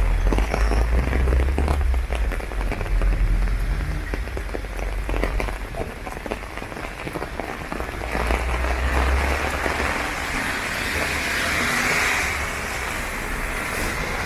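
Rain falling on an umbrella overhead: a dense patter of drops over a steady hiss, with a low rumble underneath in the first few seconds and again about eight seconds in.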